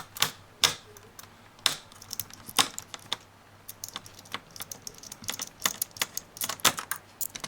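Irregular sharp clicks and taps of a screwdriver and hands working screws out of a laptop's plastic case.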